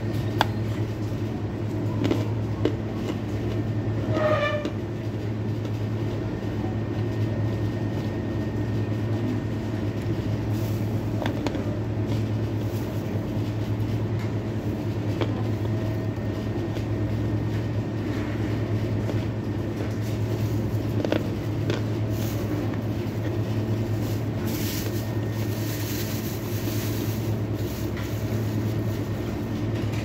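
Crisp crunching of a piece of chalk being bitten and chewed close to the microphone, coming in scattered bites with a denser stretch near the end. Under it runs the steady drone and low hum of a kitchen extractor hood.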